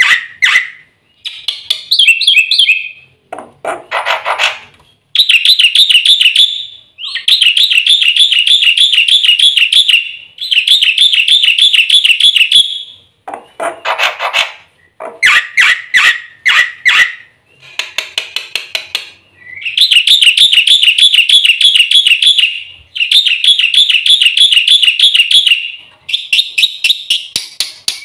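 Black-winged myna (jalak putih) singing: long rapid rattling trills of two to three seconds each, alternating with shorter bouts of quick chattering notes.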